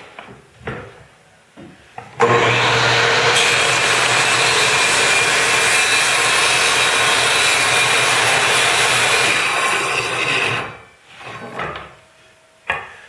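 Table saw switched on about two seconds in, running steadily through a rip cut in a narrow wooden strip fed along the fence, then switched off and dying away after about ten seconds. Light knocks of wood being handled come before and after.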